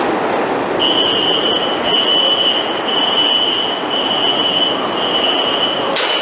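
Subway train rumble as a steady roar. About a second in, a high alarm tone joins it, sounding in long beeps about once a second.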